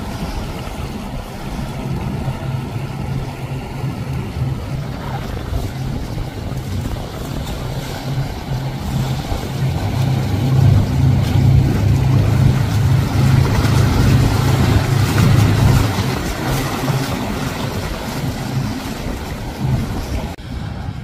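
Engines of passing powerboats running with a low, steady hum over the rush of wake water; the hum swells loudest in the middle as a flybridge motor yacht goes by at speed.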